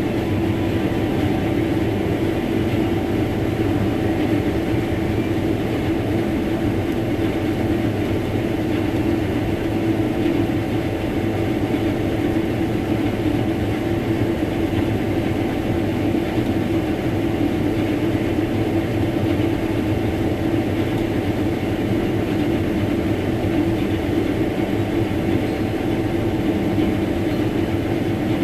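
Combine harvester running steadily while harvesting wheat: a constant mechanical drone with a steady hum, no change in pitch or load.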